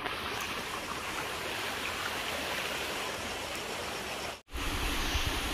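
A steady outdoor rushing noise, even and without distinct events. About four and a half seconds in it cuts out for an instant and comes back with a heavier low rumble.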